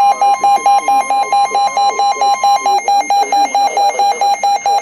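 NOAA Weather Radio warning alarm tone, a steady high tone that cuts off a little under three seconds in. Under it, a weather-alert radio's alarm beeps rapidly, about five electronic beeps a second, and keeps going throughout.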